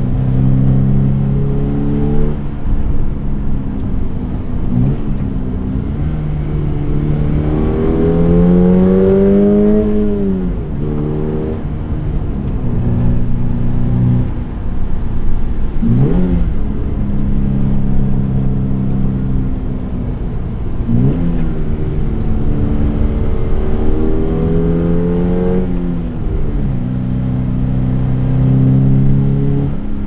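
Toyota GR86's 2.4-litre flat-four boxer engine heard from inside the cabin while driving. Its note climbs under acceleration and then drops sharply, twice in long pulls and with several quicker swings between, as the revs rise and fall.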